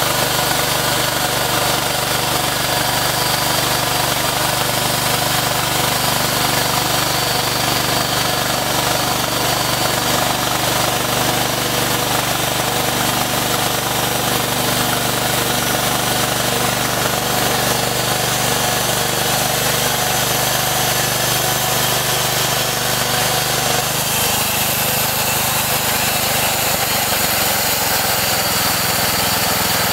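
Small gasoline engine on a two-post bandsaw mill running steadily while the band blade saws lengthwise through a log; near the end the engine note drops as the cut finishes.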